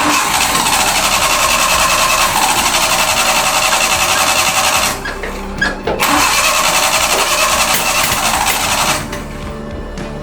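Suzuki mini truck engine being cranked by its starter in two attempts, about five seconds and then about three, with a fast even pulsing; each stops abruptly without the engine catching, as it has a fuel/carburetor problem still being worked on.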